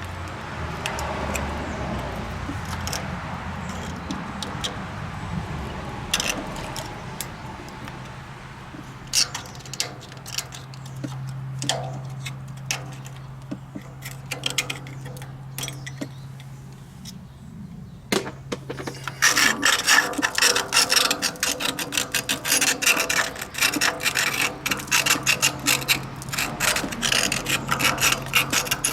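Hand work on the rusty rear brake and axle of a Ford NAA tractor: scattered clicks and knocks of tools on metal, then, from about two-thirds of the way in, a loud, fast, continuous rasping and scrubbing on metal.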